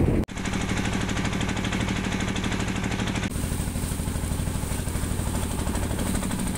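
Inboard engine of a small wooden fishing boat running steadily under way, with a rapid, even beat and a steady low hum. It starts abruptly just after a brief break at the very start.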